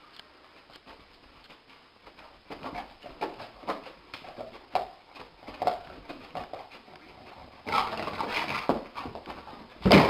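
A dog making a series of short, sharp sounds with knocks in between, getting louder near the end.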